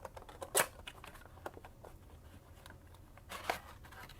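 A retail blaster box of trading cards being opened and emptied: cardboard and plastic packaging crinkling and tearing, with scattered light clicks and two sharper rustles, one about half a second in and one near the end.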